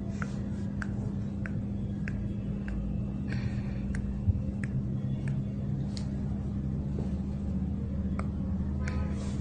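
Skin being pinched and pulled in pinch-scraping (jiu sha) on the neck and chest: short, sharp snaps each time the pinched skin slips from the fingers, about one or two a second. A steady low hum runs under them.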